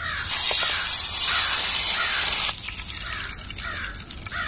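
Beef sizzling loudly in hot oil in a frying pan, the hiss dropping suddenly to a quieter sizzle a little past halfway. A bird calls over and over throughout.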